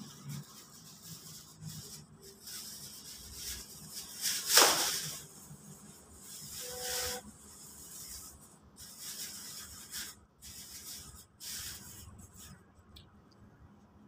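Plastic bin liner rustling in irregular bursts as it is shaken open and fitted into a small waste bin. The loudest swish comes about four and a half seconds in, with another about seven seconds in.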